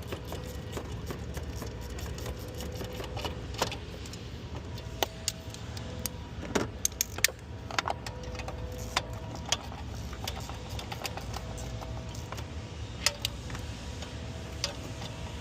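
Scattered metallic clinks and clicks of hand tools against fuel rail fittings and bolts as they are snugged down, loudest in a cluster around the middle, over a steady low background hum.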